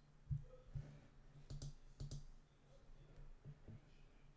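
Computer mouse clicking: a handful of quiet, sharp clicks at irregular intervals as tools are picked in a simulator's toolbar.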